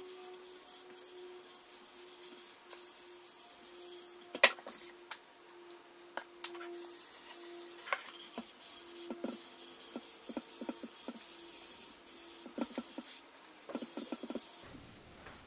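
A paper towel rubbing mineral oil into the end grain of a wooden cutting board: steady rubbing, with a few light knocks from handling the board, the loudest about four seconds in. The rubbing stops shortly before the end.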